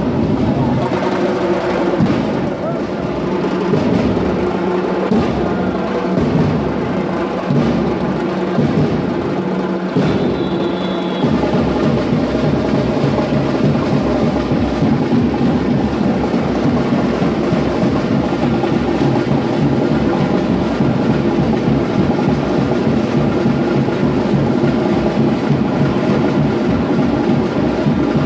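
Loud dance music driven by drums and percussion, playing without a break. It gets a little louder about eleven seconds in.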